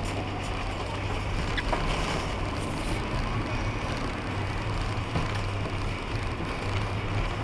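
Truck driving slowly on an icy, slushy road, heard from inside the cab: a steady low engine hum with tyre and road noise, and a few faint sharp clicks.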